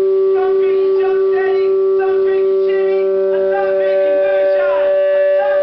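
Live music: a loud, steady droning note held the whole time, with a wavering, changing line of melody moving over it.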